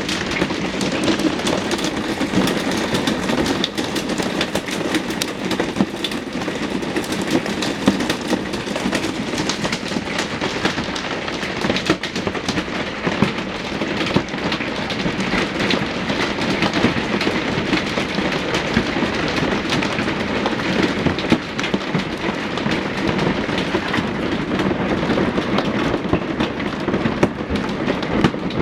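Heavy hail pelting down: a dense, unbroken clatter of hailstone impacts over a steady roar.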